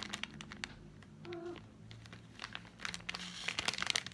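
Candy packaging being crinkled and handled by hand: bursts of crackling at the start and again through the second half, with a quieter stretch in between.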